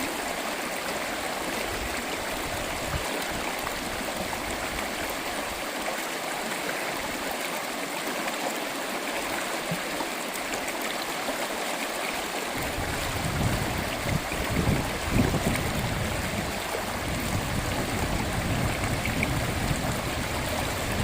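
Stream water running steadily. About halfway through, an irregular low rumble joins in.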